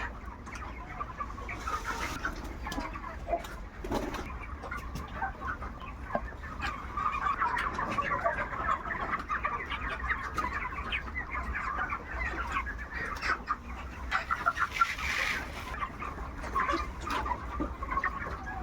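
A flock of chickens clucking continuously, many short overlapping calls at once.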